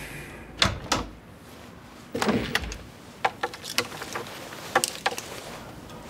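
High-heeled footsteps on a wooden floor, two sharp clicks about half a second apart. Then a wooden cupboard door is opened, with a series of separate clicks and knocks.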